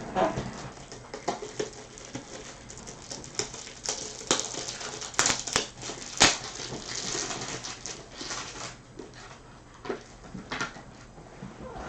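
Trading cards and their plastic sleeves and top loaders being handled on a table: irregular clicks, taps and rustling, with a cluster of sharper clicks in the middle.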